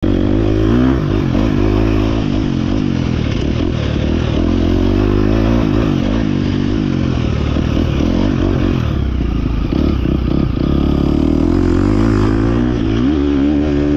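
KTM dirt bike engine heard close up while being ridden, its pitch rising and falling over and over as the throttle is opened and closed.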